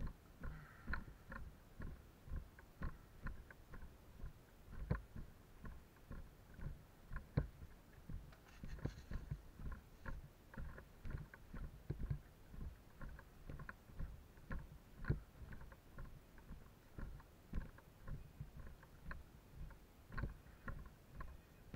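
Footsteps walking on a dirt path covered in dry leaves, picked up by a body-worn camera: soft thuds in a steady walking rhythm, with light rustling and small clicks.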